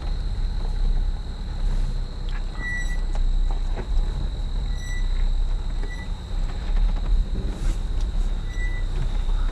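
Off-road vehicle engine running with a steady low rumble. A few short, high-pitched beeps come at irregular intervals.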